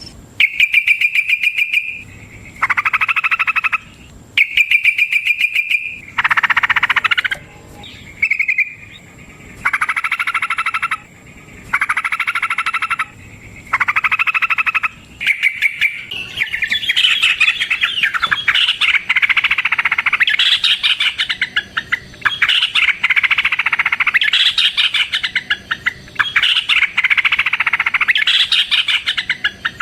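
Yellow-vented bulbul (trucukan) calling in rapid chattering trills, each phrase about a second long with short pauses between, turning into near-continuous busy chatter about halfway through.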